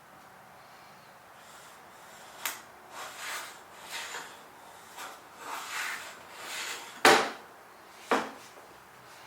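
A series of short scraping strokes from working a steel plane blade, roughly one a second after a quiet start. Some strokes begin with a sharp knock, and the loudest knock comes about seven seconds in.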